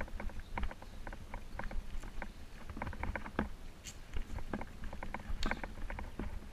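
Bicycle rolling over rough, gravelly pavement: a low rumble of tyres and wind under irregular clicks and rattles from the bike.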